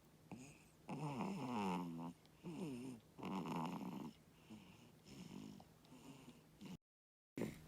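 Newborn baby snoring in sleep: a series of noisy breaths, the three loudest near the start carrying a sliding, pitched, grunty tone, then softer snores. The sound drops out completely for about half a second near the end.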